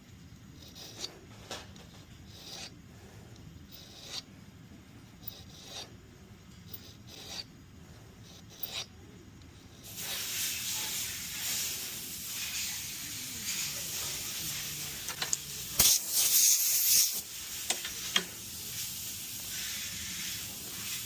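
Hand file scraping on the steel hammer spur of a 1911 pistol, rounding it off. At first there are short separate strokes; about halfway through it turns into a louder, hissier, more continuous rasping, loudest for about a second near the end.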